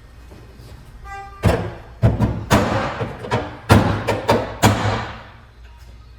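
Background music with a run of loud, sharp percussive hits, each ringing out briefly, over a steady low hum.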